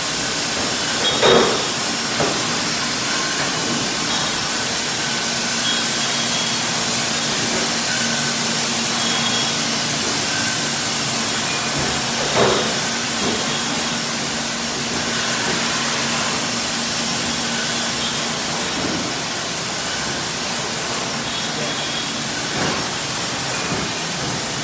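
Automated bottle filling and capping line running: a steady machine hiss with a low hum through most of it that stops about three-quarters of the way through, and a few brief clinks of glass bottles.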